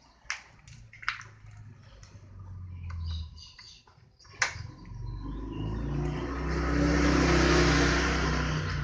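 JRD Tornado motorcycle's 150cc engine revved through an aftermarket exhaust: a short rise in revs, a drop, then a longer, louder rev that peaks and falls away near the end, with a few sharp clicks in the first half.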